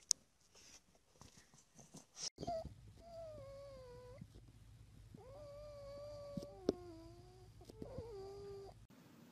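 A pug whining: three long, high, wavering whimpers with a couple of shorter ones between, after a quiet start with a few faint clicks.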